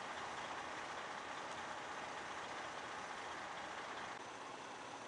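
Steady running noise of an idling heavy vehicle engine, easing off slightly a little after four seconds in.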